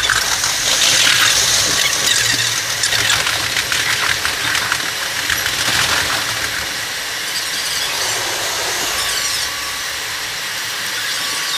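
Running noise of a commuter train on rails, sped up eight times so it comes out as a dense, high-pitched rush. It grows a little quieter in the second half as the train comes into a station.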